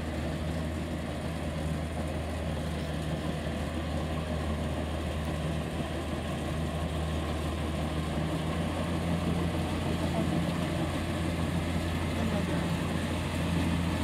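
Kubota combine harvester's diesel engine running steadily as it cuts rice, a constant low hum, getting a little louder in the second half.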